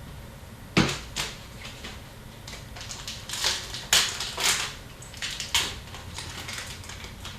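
Hockey trading cards and packs being handled on a table: a sharp tap about a second in, then a run of quick papery swishes and clicks as cards are flipped and slid.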